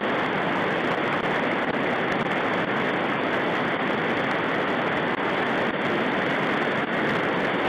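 River rapids rushing over rocks: a steady, unbroken wash of fast white water.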